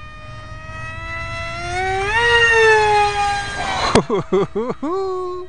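Scratch-built RC jet's electric motor whining in flight. The pitch rises about two seconds in and slowly falls off, then a sharp tick is followed by several quick up-and-down swoops in pitch near the end as the throttle is worked.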